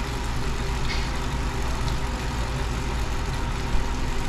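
Indoor bicycle trainer whirring under steady pedaling of a road bike, an even low hum that holds constant throughout.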